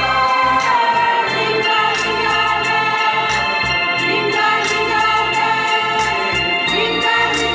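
Church choir singing a hymn together, accompanied by a held electronic organ sound with a light steady beat.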